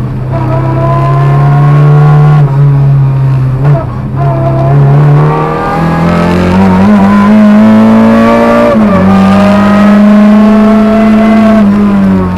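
Lada 2107 rally car's 1.6-litre Béreš-built engine pulling hard, heard from inside the cabin. The revs climb steadily from about five seconds in, drop sharply at a gear change near nine seconds, and fall away near the end.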